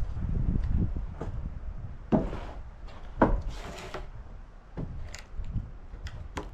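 Wooden knocks and thumps from sawn slabs or boards being handled, the loudest about two and three seconds in, with a short scrape of wood sliding on wood just before the fourth second.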